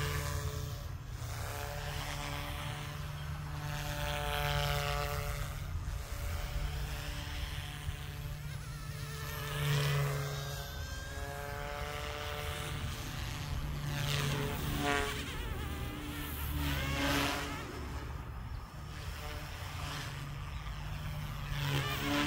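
Goosky S2 electric RC helicopter flying on resin 3D-printed main blades. The motor and rotor whine rises and falls in pitch and swells louder several times as it manoeuvres, over a steady low rumble.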